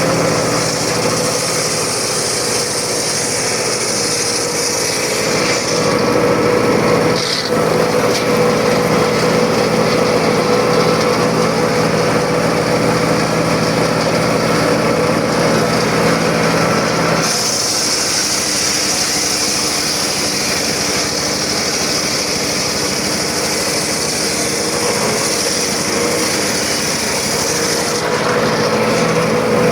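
Circular saw running continuously and cutting wood, its tone shifting a few times as the load changes, with a brief dip about seven seconds in.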